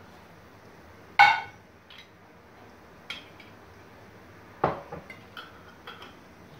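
Kitchen clatter of metal and glass: a loud ringing metal clink about a second in as the steel cup meets the pot, then a knock near the middle and several small clicks as a filled glass jar of beet pickle is handled and its metal twist-off lid put on.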